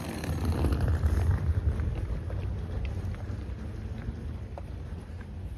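Wind buffeting the microphone: an uneven low rumble, heaviest in the first couple of seconds and easing after, with a few faint ticks.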